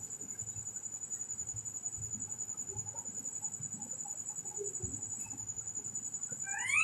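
Faint soft rustles over a steady, thin, high-pitched whine, then near the end one short squeal that sweeps sharply upward in pitch.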